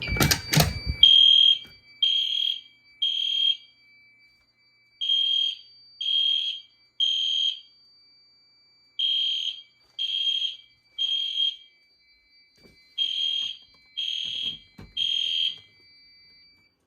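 Fire alarm horns sounding the temporal-3 evacuation code: three high beeps about a second apart, a pause, then the same again, over and over. It opens with a couple of sharp clicks as a manual pull station is pulled.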